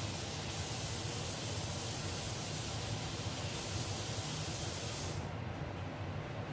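A steady hiss that cuts off suddenly about five seconds in, over a low steady hum that carries on.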